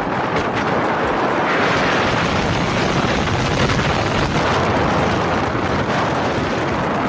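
Strong sandstorm wind blowing hard and buffeting the microphone: a loud, steady rushing noise with a low rumble underneath.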